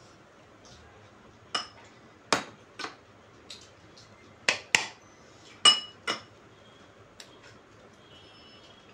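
Metal serving spoon clinking against plates and glass serving bowls, about seven sharp clinks, some ringing briefly, the loudest near the middle.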